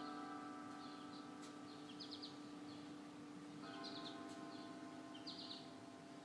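Church bells ringing: a held bell tone fades away, and a new bell note sounds about three and a half seconds in. A small bird chirps in short repeated calls over it.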